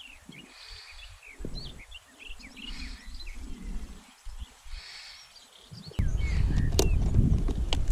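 Birds chirping and singing, many short high calls in quick succession. About six seconds in, wind buffets the microphone with a loud low rumble, and a couple of sharp clicks follow.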